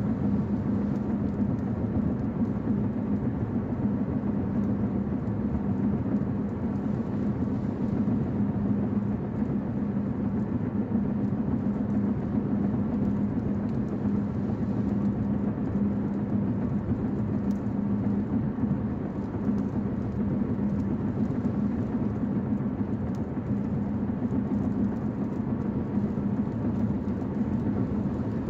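Steady drone of a car cruising at highway speed, heard from inside the cabin: even road and engine noise with a constant low hum that does not change.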